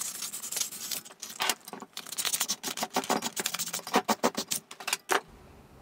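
Sandpaper (400 grit) rubbed by hand around an induction motor's rotor shaft in quick, scratchy back-and-forth strokes, smoothing off light rust where the new bearing has to slide on. The strokes stop about five seconds in.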